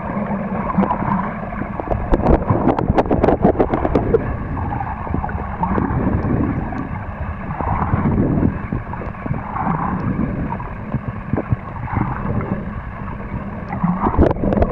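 Muffled water noise picked up by a camera held under water: a steady churning wash with gurgles, and a dense run of crackling clicks about two to four seconds in and again briefly near the end.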